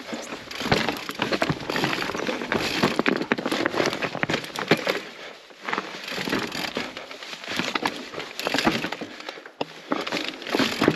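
Mountain bike rolling over loose volcanic rock and stones: tyres crunching on the scree, with irregular clicks, knocks and rattles from the bike and a couple of brief lulls.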